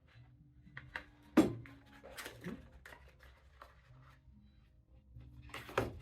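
Objects being handled on a table: a sharp knock about a second and a half in, with light scraping and rustling around it, and a longer scraping rustle near the end.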